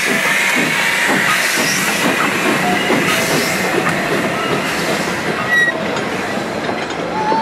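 Steam-hauled train of passenger cars rolling slowly past on a curve: wheels clicking over the rail joints, with a thin wheel squeal that fades after about three seconds.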